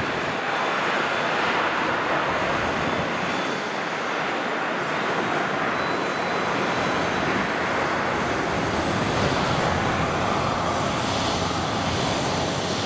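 Twin Pratt & Whitney JT12 turbojets of a North American Sabreliner 40A running at taxi power while the jet taxis: a steady jet noise that holds an even level throughout.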